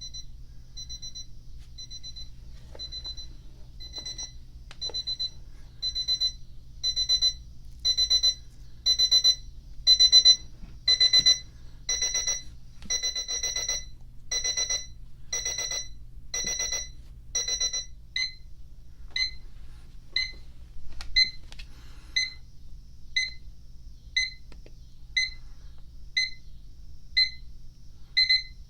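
Electronic alarm clock beeping, high-pitched, about once a second. The beeps grow louder and longer over the first half, then change to short, clipped chirps about 18 seconds in.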